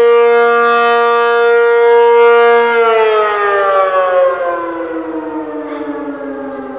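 American Signal RM-135 rotating electromechanical siren sounding its steady Alert tone, then winding down about three seconds in, its pitch falling and its sound fading as the rotor slows at the end of the signal.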